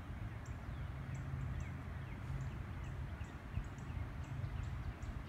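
Outdoor ambience: a steady low rumble with faint small-bird chirps repeating a few times a second.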